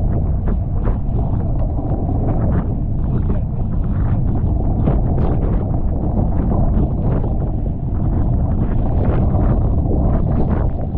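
Strong wind buffeting the microphone over water rushing and splashing past the hulls of a Tornado racing catamaran under sail, with irregular bursts of spray.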